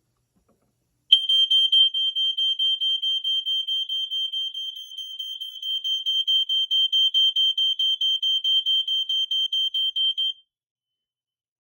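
FireX G6 ionization smoke alarm sounding in test mode: a shrill high-pitched beeping, about four pulses a second, starting about a second in and cutting off near the end. Other interconnected smoke alarms in the house sound along with it.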